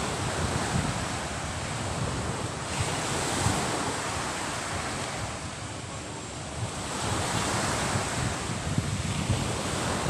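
Small sea waves breaking and washing up a sandy beach, the surf swelling and easing as each wave comes in, with wind buffeting the microphone.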